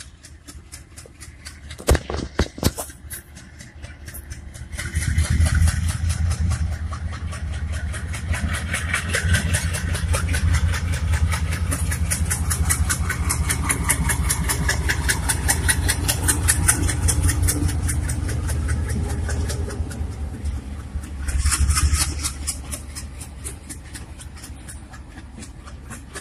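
ALCO WDM-3A diesel locomotive and its express train passing at speed. A heavy diesel engine rumble and rapid, even wheel clatter over the rails build about five seconds in, swell again near the end and then fade.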